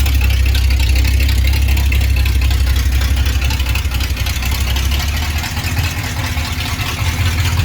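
Freshly rebuilt 327 small-block Chevrolet V8 idling steadily with a deep, even rumble; its exhaust is not yet welded up.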